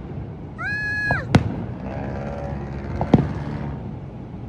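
Fireworks going off: two sharp bangs, one about a second and a half in and another about three seconds in, over a steady rumble of the display. A high cry of 'Ah!' comes just before the first bang.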